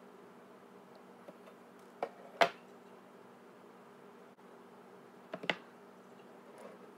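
A few sharp clicks and taps of small hand tools being handled and set down on a wooden desk, the loudest about two and a half seconds in, over a faint steady hum.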